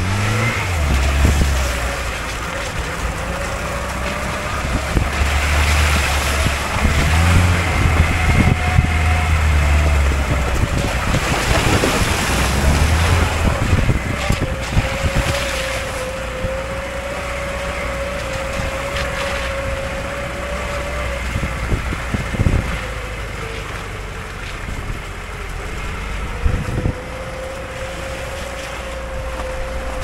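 Lada Niva VAZ-21213's four-cylinder petrol engine pulling the car slowly along a snowy forest track, heard from a camera mounted on the outside of the body: a low engine drone that rises and falls over the first half, then runs steadily, under tyre noise on snow and slush and wind on the microphone. Two sharp knocks come in the second half.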